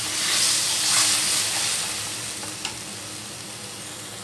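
Yogurt-marinated chicken tikka strips sizzling in oil in a hot kadai over high flame as they are stirred. The sizzle is louder in the first second or so, then eases off, with a faint clink of the spoon once partway through.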